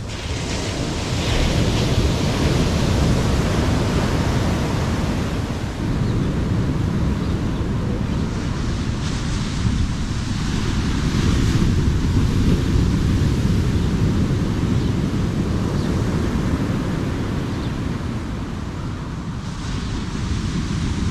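Wind blowing across the microphone over surf breaking on the beach: a steady rushing noise with heavy low rumble from the wind.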